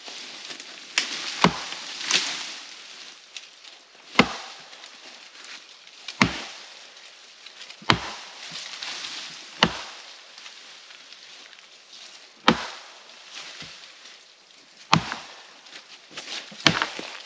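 Axe chopping into a fallen birch trunk: about eight sharp blows, roughly one every two seconds. Brush and branches rustle between the blows.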